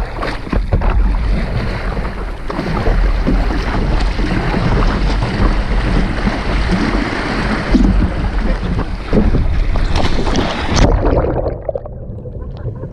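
Wind buffeting the microphone and water splashing around a stand-up paddleboard's nose as it is paddled through choppy waves. About eleven seconds in, the nose dives under and the sound turns suddenly muffled as the microphone goes underwater.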